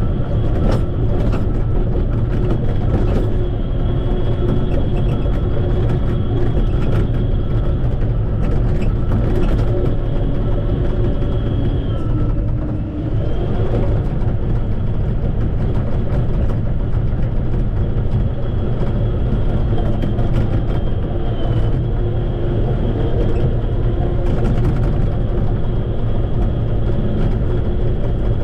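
Shantui bulldozer's diesel engine running steadily under load, with a high steady whine over it; the sound eases briefly about twelve seconds in.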